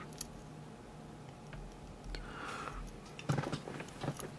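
Hook pick and tension wrench working the pin stack of a Schlage Everest lock cylinder: faint, scattered metallic clicks and scrapes, with a louder cluster of clicks about three seconds in.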